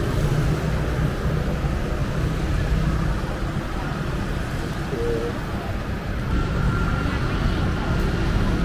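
Steady low rumble of outdoor background noise, with a short faint tone about five seconds in.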